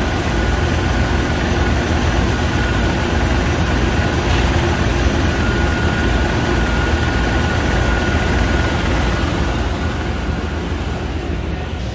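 1997 Ford F-250's 7.5-litre V8 running steadily with the newly replaced AC compressor engaged, heard close up in the engine bay. A thin steady whine sits over the engine noise and fades out about ten seconds in.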